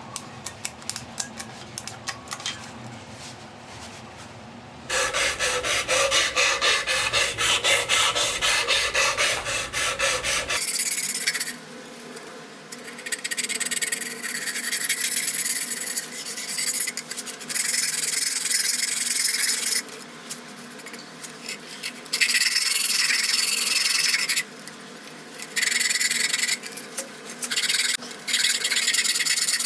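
Bamboo root being abraded by hand: rough rubbing strokes of a rasp or abrasive on the wood, in stretches of a few seconds with short pauses between. A few light clicks come before the rubbing starts about five seconds in.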